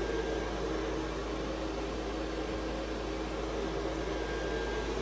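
Steady whir of a Christmas inflatable's electric blower fan keeping the display inflated, an even rush of air with a faint constant hum.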